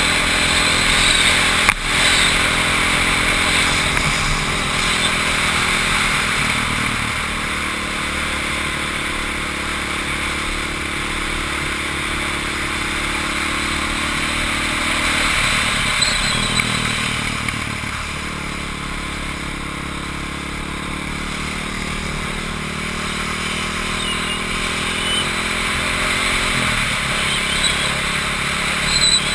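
Onboard sound of a small track vehicle's engine running hard around a circuit, its note holding steady for long stretches and changing pitch abruptly a few times as the throttle or gear changes, over a continuous rush of wind and road noise.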